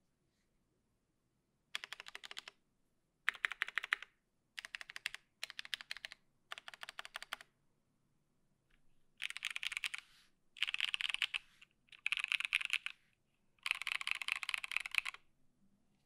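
Mechanical keyboard being typed on in nine quick bursts of clacking keystrokes, with short pauses between them and a longer pause midway; the last burst runs longest.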